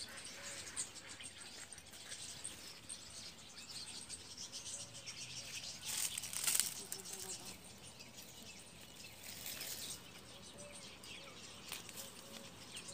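Dry vines, stalks and leaves rustling and crackling as hands pull young bean pods off the plants, loudest about six seconds in.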